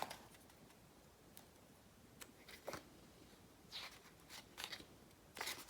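Near silence, with a few faint, brief rustles of photo-book pages being turned and handled.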